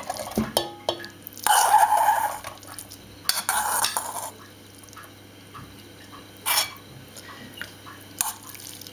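Boiled rice being scraped and tipped from a bowl into a steel pot: two longer scraping rasps in the first half, then a few short knocks of the bowl against the pot.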